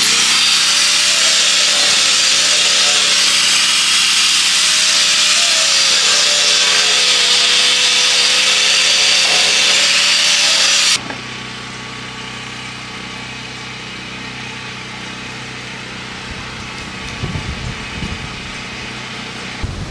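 A power tool running at high speed, its whine wavering in pitch, for about eleven seconds, then cutting off suddenly; a quieter steady hum remains after.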